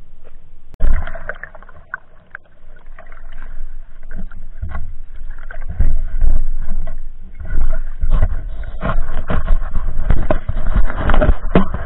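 Water sloshing and knocking against an action camera as a spearfisher swims, muffled and rumbling, with irregular sudden knocks; a sharp loud one comes about a second in, and the surges grow busier in the second half.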